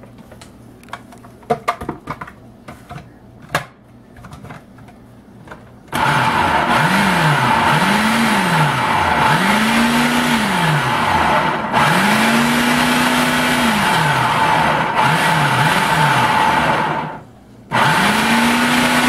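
A few clicks and knocks as the plastic lid is fitted onto a food processor. About six seconds in, its motor starts and runs loudly, blending a thick chipotle barbacoa sauce, with a low hum that repeatedly rises and falls. It stops for a moment near the end and starts again.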